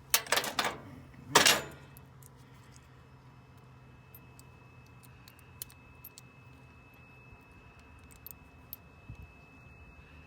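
Small metal lock parts and hardware clinking and rattling as they are handled, in two short bursts within the first two seconds, followed by faint scattered clicks.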